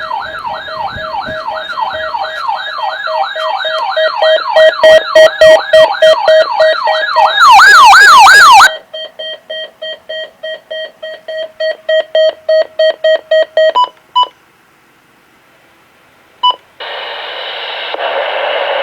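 Weather alert radio sounding its alarm for the weekly test: a fast warbling siren, about two sweeps a second, over steady beeping. The siren stops about nine seconds in, leaving quicker beeps alone until about fourteen seconds. After a short quiet, the radio's audio opens with a hiss of static near the end.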